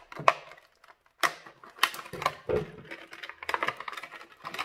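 Clear plastic toy packaging crackling and rustling as it is cut with scissors and pulled off, in a string of short sharp crackles with a brief pause near the start.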